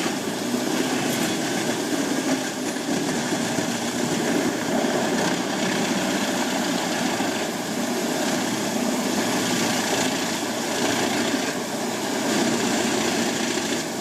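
Large wood chipper's engine running steadily under load, with a dense rasping from logs being shredded inside the machine.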